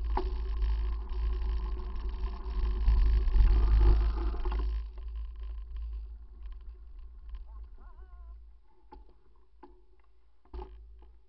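Wind buffeting the microphone on an open beach: a heavy low rumble with a hiss over it, which dies away about five seconds in. Faint clicks and small handling knocks follow, with a brief wavering tone near the eight-second mark.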